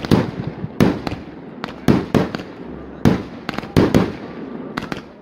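Aerial fireworks bursting in quick succession: sharp bangs come irregularly, about one to two a second, and each trails off in a short echo.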